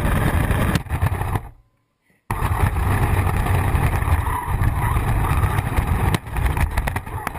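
Radio-controlled car driving: a loud, steady noisy rumble, strongest in the lows. It cuts out for under a second about a second and a half in, and a quick run of knocks comes near the end.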